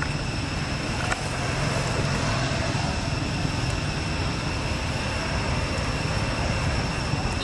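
Road traffic: a steady low rumble of passing vehicles, with a steady high-pitched whine over it and a single sharp click about a second in.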